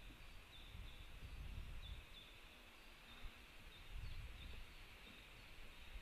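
Faint outdoor ambience: a low, uneven rumble of wind on the microphone, with small birds chirping briefly and faintly several times.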